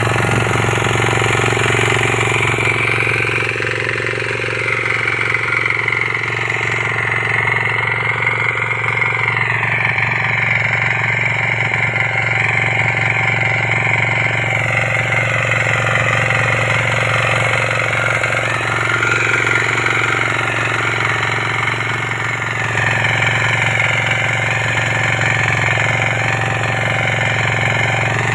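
KisanKraft KK-IC250D 5 HP diesel power weeder running steadily with a hard, rapid knocking. Its level and pitch waver slightly a couple of times.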